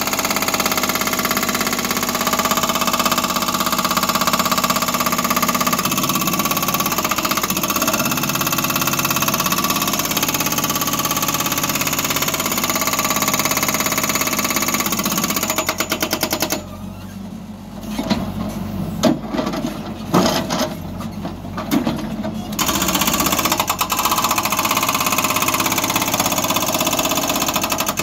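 Hidromek backhoe loader's diesel engine running steadily. Past the middle it drops back for several seconds and a run of sharp knocks sounds, then the steady running picks up again.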